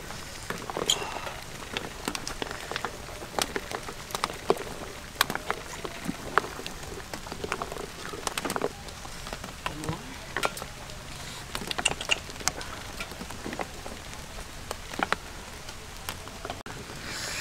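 Broth boiling in a wok over a wood fire: a steady hiss with irregular sharp pops and crackles, several a second.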